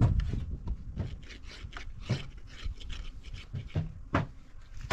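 Wooden beehive frame being handled and rubbed against a hive lid: irregular scraping and light knocks of wood, with the sharpest knock about four seconds in.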